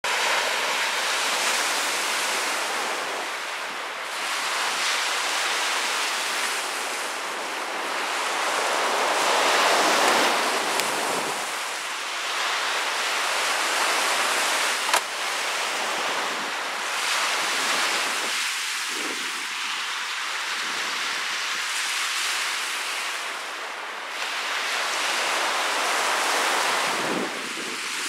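Lake Huron waves breaking and washing up a sandy beach, swelling and ebbing every few seconds, with a 16-knot wind gusting over the microphone. A single sharp click about halfway through.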